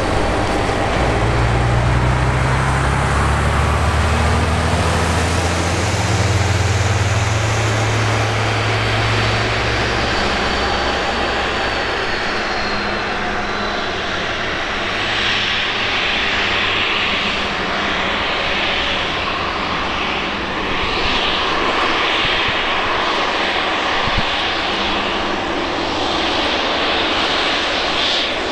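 Embraer 195 jet's twin General Electric CF34-10E turbofans running at taxi power as the airliner turns onto the runway. There is a low rumble for the first ten seconds or so, then a steadier high whine that grows from about halfway.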